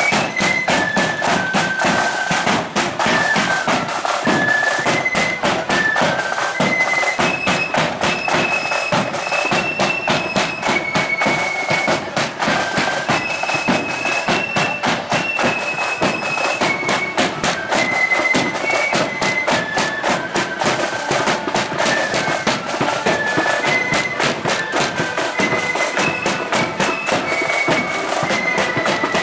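Marching flute band playing a march tune, the flutes carrying a high melody in unison over drums beating a steady marching rhythm.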